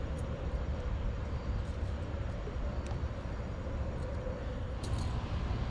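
Steady low rumble with a faint wavering hum, and a few light clicks.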